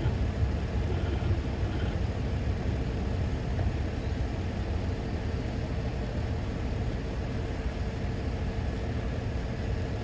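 Diesel freight locomotive idling at a standstill: a steady low rumble with a faint constant hum above it.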